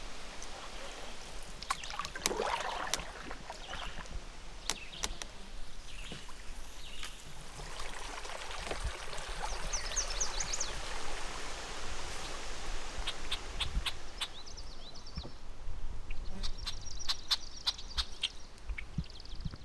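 Outdoor marsh ambience: a steady soft hiss with scattered small clicks, and high rapid twittering bird calls around the middle and again near the end.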